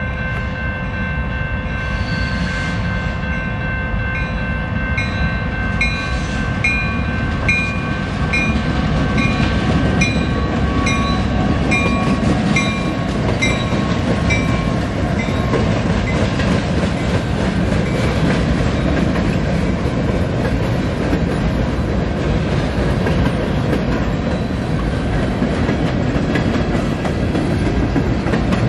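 Canadian National diesel freight train passing close by. Grade-crossing bells ring in a steady rhythm, about twice a second, for the first fifteen seconds or so while the locomotives rumble past. After that the rumble and the clatter of the freight cars' wheels carry on alone.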